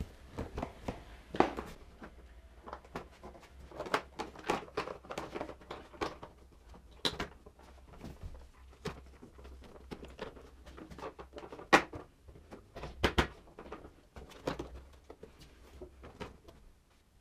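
Plastic rear fender of a motocross bike being pushed and wiggled onto the frame by hand: irregular plastic knocks, clacks and rubbing, with the two sharpest knocks about twelve and thirteen seconds in.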